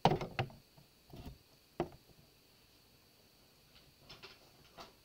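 Handling knocks as small objects, a porcelain pitcher among them, are moved on a wooden tray. There is a cluster of clatters at the start, another about a second in, and one sharp knock just before two seconds, then a couple of faint taps near the end.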